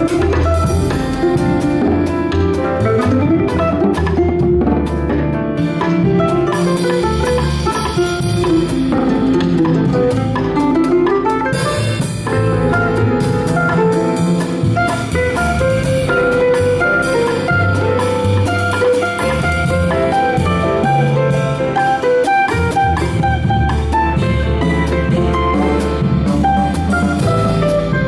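Instrumental bolero played by a ten-string bandolim (Brazilian mandolin) leading a jazz rhythm section. Plucked melody notes run over a drum kit and a low bass line, without pause.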